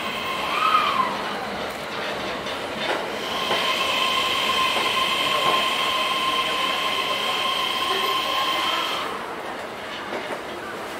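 E131-600 series electric train arriving slowly alongside the platform, with rolling wheel-and-rail noise. Its VVVF inverter gives a steady high whine made of two tones, after a brief rise-and-fall in pitch near the start. The whine cuts off about nine seconds in.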